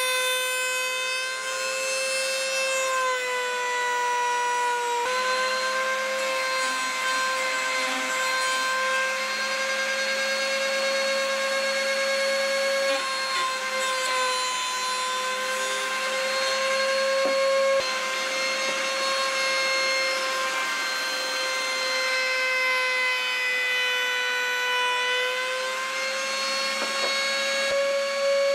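Table-mounted wood router running at a steady high whine, the pitch sagging a few times as wood is fed into the bit, with the hiss of the bit cutting wood.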